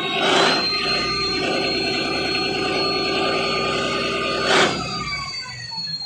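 Mitsubishi S6R2-MPTK six-cylinder turbocharged marine diesel running, with a steady high turbo whine over the engine's pulse. There are two short bursts of noise, about half a second in and about four and a half seconds in; after that the engine slows and the whine falls in pitch near the end.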